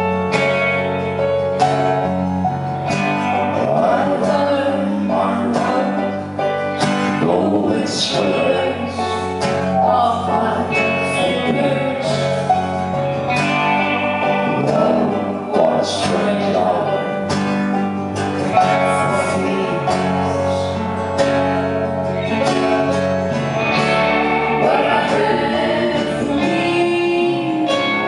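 A band playing a country-folk song live, with guitars and singing.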